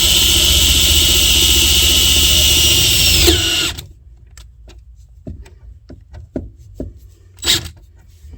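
Electric drill running at steady speed with a high whine as a larger bit enlarges a small pilot hole in a car's gear shifter. About three and a half seconds in, the drill is released and winds down to a stop. A few light clicks and taps follow.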